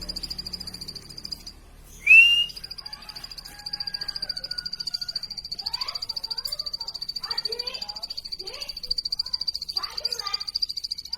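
Plain prinia calling: one loud, upward-curving chirp about two seconds in, with softer scattered chirps later. Underneath runs a steady high, rapidly pulsing trill.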